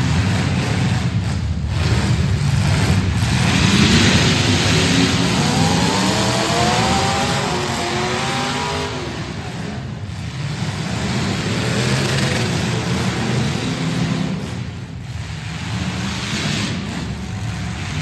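Several demolition derby cars' engines running loud together, with one engine revving up and down in pitch through the middle stretch.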